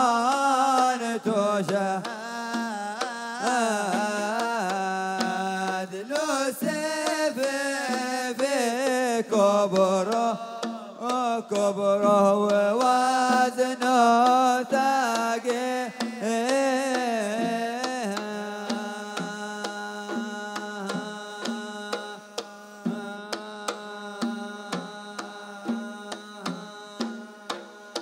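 A Hadhrami zurbadi dance tune: a long wooden flute plays an ornamented, wavering melody over steady drum beats. About 18 seconds in, the flute settles into long held notes while the drum keeps the beat.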